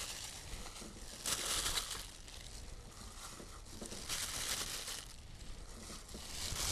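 Clear disposable plastic glove crinkling while a hand puts vegetables into a pot of water, in three short rustling bursts.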